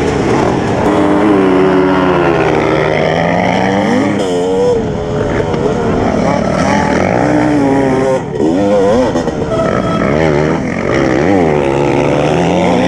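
Sherco 300 SE-R two-stroke dirt bike engine being ridden hard, its pitch rising and falling over and over with the throttle and gear changes, with a brief drop about eight seconds in.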